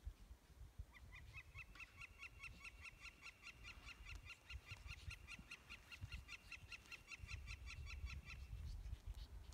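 Faint woodpecker call: a long, even run of short, sharp notes, several a second, starting about a second in and stopping shortly before the end.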